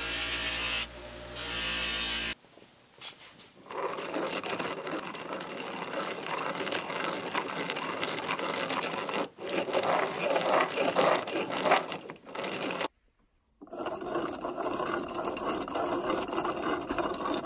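A hand-spun train of black plastic and cast bronze gears on a wooden board, the teeth meshing in a fast continuous clatter, with a short silent break about thirteen seconds in. It opens with about two seconds of a bench buffer's steady machine hum.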